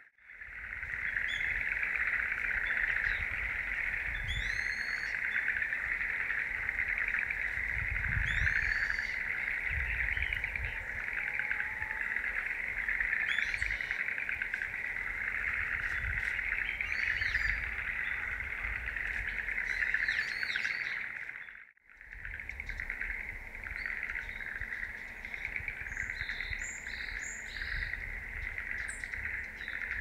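Small songbirds giving scattered high, sweeping call notes over a steady, dense buzzing chorus of insects. The sound drops out briefly about two-thirds of the way through.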